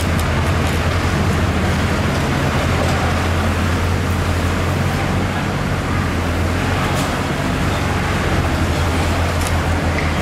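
Steady low mechanical hum, like a running engine, over a wash of background noise, with a few faint ticks.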